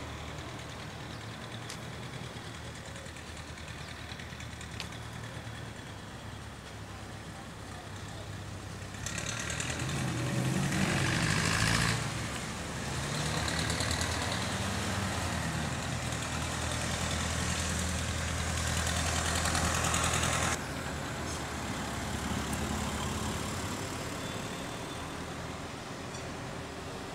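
Street traffic: a motor vehicle engine running steadily. Between about nine and twenty seconds in, a vehicle passes louder, its engine pitch rising and falling, and the sound drops off suddenly.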